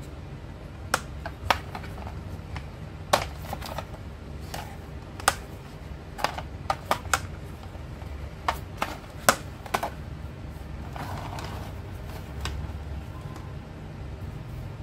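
Glass marbles clicking and clacking against each other and the track of a marble run: about fifteen sharp, irregular clicks in the first ten seconds, then only a few. A steady low hum runs underneath.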